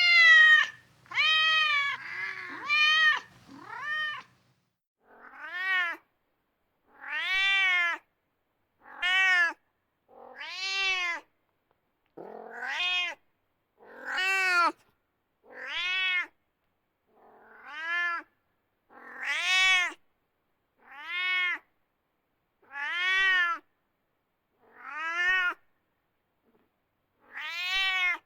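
Domestic cat meowing over and over, each meow rising then falling in pitch. The meows come close together at first, then settle to one every second or two with silence between.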